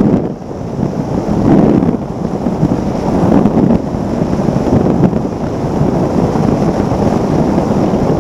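Formula One powerboat at racing speed heard from on board: heavy wind rushing over the microphone, mixed with the outboard engine and the hull slapping and spraying across the water. The noise is loud and swells and dips every second or two.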